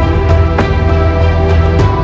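Background theme music with a heavy bass and a steady beat.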